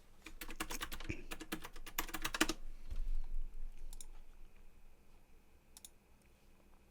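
Typing on a computer keyboard: a quick run of keystrokes for about two and a half seconds, then a dull thud and a few single clicks.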